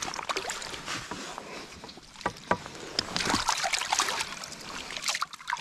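Water splashing and sloshing in a rubber-mesh landing net as a smallmouth bass flips about and a hand holds it down, busiest about three seconds in.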